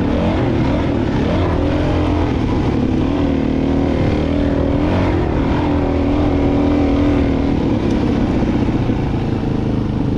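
Dual-sport motorcycle engine running while being ridden, its pitch rising and falling a little with the throttle.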